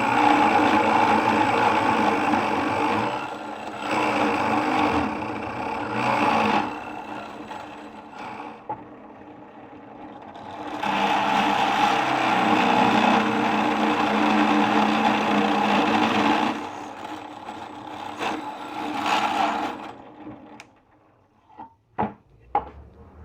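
Electric drill boring into wood, running in three long spells with short pauses between. A few sharp knocks near the end.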